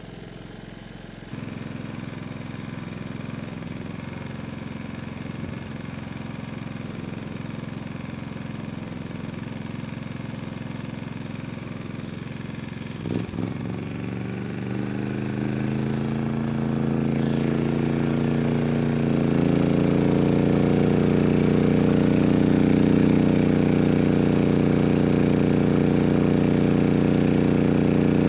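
MAXPEEDINGRODS MXR5500 inverter generator's engine running. About halfway through it speeds up in stages as the space heaters are switched back on as load, then holds a steady higher pitch under that load.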